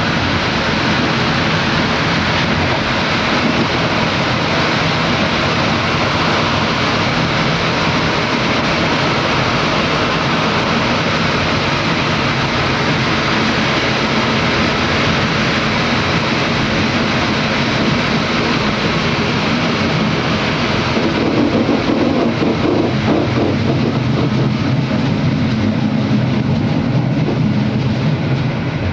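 Passenger train running along the track, heard from inside its last car: a steady rumble and rush of wheels on rails. About two-thirds of the way through, the high hiss thins and a heavier low rumble takes over.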